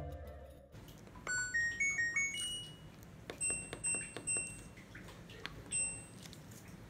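Washing machine control panel beeping as its buttons are pressed: a quick run of rising electronic tones, followed by several short single beeps.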